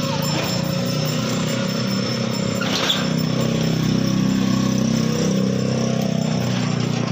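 Honda TMX motorcycle's single-cylinder engine running, a steady pulsing drone that grows a little louder about halfway through, with one sharp click about three seconds in.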